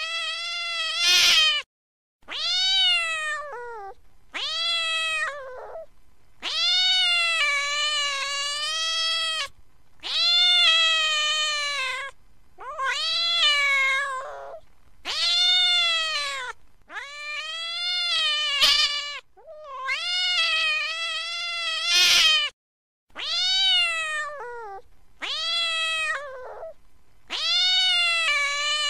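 A cat yowling in long, drawn-out, wavering meows, about a dozen calls one after another, each one to three seconds long with short gaps between. It is an angry cat's caterwauling.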